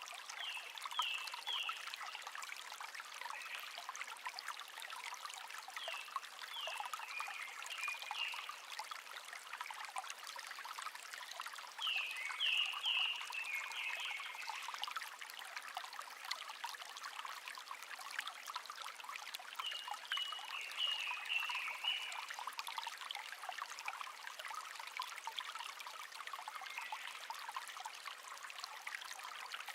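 Small stream trickling steadily over stones. A songbird sings short phrases of quick falling notes four times, with a fainter phrase near the end.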